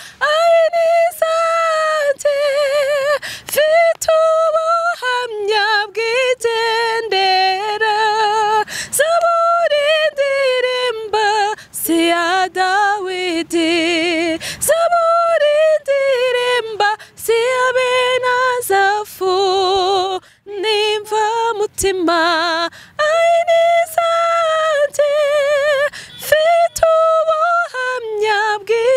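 Two women singing a Kinyarwanda worship song a cappella, in drawn-out notes with vibrato, broken by short breaths.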